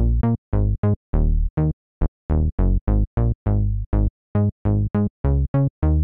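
Xfer Serum software synthesizer playing a factory bass preset: a staccato riff of short, punchy low notes, several a second, each cutting off sharply with silence between. On the longer notes the bright top fades quickly, like a closing filter.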